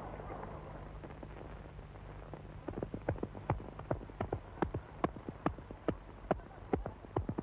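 Hoofbeats clip-clopping in an uneven rhythm, about four sharp strikes a second, starting nearly three seconds in.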